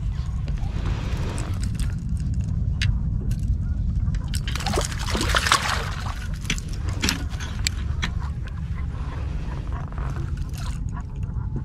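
Hooked bluefish thrashing and splashing at the surface beside a kayak, with scattered sharp splashes and a heavier burst of splashing about five seconds in, over a steady low rumble.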